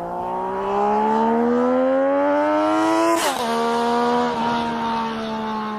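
Yamaha Raptor 700 sport quad's single-cylinder engine accelerating on pavement, its pitch climbing steadily for about three seconds. A sharp click and drop in pitch follow at an upshift, then it runs on at a steady pitch.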